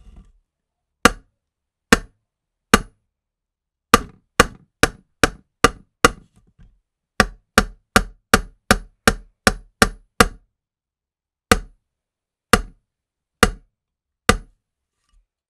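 A hammer striking about twenty sharp, separate blows. They come at an uneven pace, with a quick run of about three blows a second in the middle, then slow down and stop.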